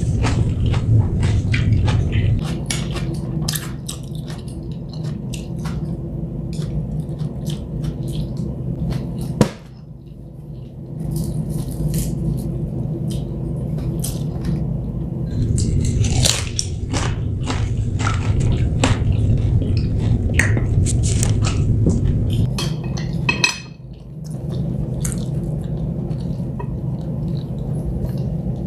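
Close-miked mukbang eating sounds: chewing stir-fried noodles, with chopsticks and plastic serving tongs clicking and scraping against plates, over a steady low hum. The hum drops out briefly twice.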